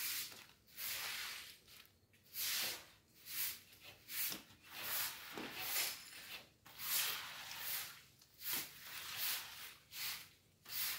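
Long-handled floor broom sweeping wet leaves across wet concrete in repeated brisk strokes, a little more than one a second.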